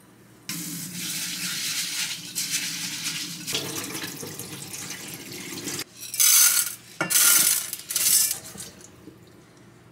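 Kitchen tap running into a pot for about five seconds while rice is being washed, the sound deepening partway through as the water fills the pot, followed by three short, louder bursts of splashing water.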